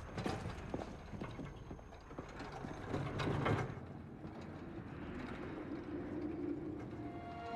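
Film sound effects: scattered mechanical clicks and clanks, a louder rushing swell about three seconds in, then a low steady hum.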